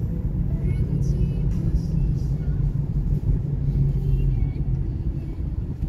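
Steady low rumble of a moving road vehicle, with faint music over it.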